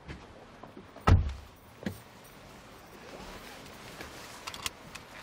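A door shuts with one heavy thud about a second in, followed by a smaller knock and, near the end, a few light clicks.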